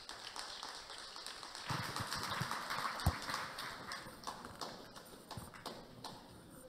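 Audience applauding, swelling about two seconds in and thinning out toward the end.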